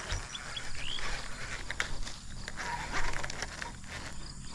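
Rustling of leaves and brush with handling clicks as a snagged fishing lure is pulled free of the bankside vegetation, swelling louder about a second in and again around three seconds in.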